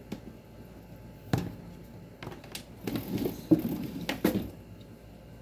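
Scattered sharp clicks and knocks with some rustling as objects are handled, the loudest knocks about a second in and about four seconds in; no motor is running.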